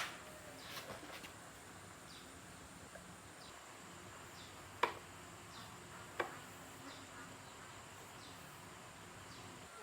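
Faint, short high chirps repeating every half second or so, with a few sharp light clicks, the clearest about five and six seconds in.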